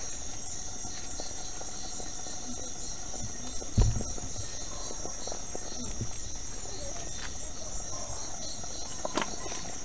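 Crickets chirring steadily, with a single thump about four seconds in.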